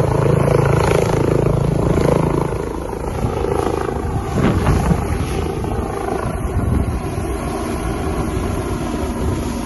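Bell 429 helicopter flying, its rotor and engine noise loud for the first couple of seconds, then dropping to a lower, rougher rumble.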